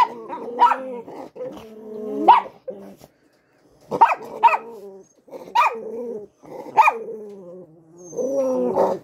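Small dogs barking and growling at one another in a squabble over a warm spot by a heater. Short sharp barks come in clusters, with growling between them and a brief pause around three seconds in.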